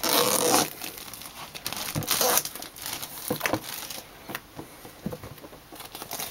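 Plastic shrink-wrap crinkling and tearing as it is pulled off a cardboard box, loudest in the first half second and again about two seconds in, then quieter rustling and small clicks.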